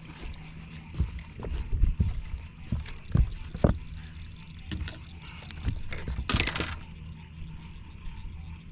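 Scattered knocks and thumps on a fishing boat as a hooked fish is handled, with a short hiss or splash about six seconds in, over a steady low hum.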